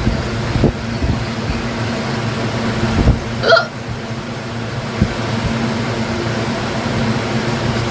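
A woman hiccuping: one sharp, pitched hic about three and a half seconds in, with a few fainter low jolts around it, over a steady background hum.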